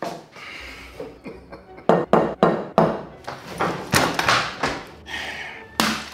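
A run of sharp knocks and thunks as the thick shell of an ostrich egg is struck and cracked open over a glass bowl, the loudest one near the end.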